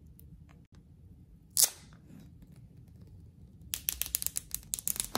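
Packaging of a phone box being handled and opened: one sharp crack about a second and a half in, then a fast run of crackling clicks near the end.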